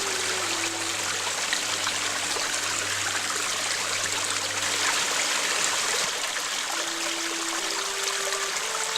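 Stream water flowing steadily in an even rushing trickle, with faint sustained musical notes underneath.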